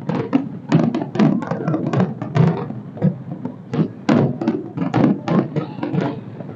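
Fireworks bursting in a rapid, irregular series of bangs, several a second.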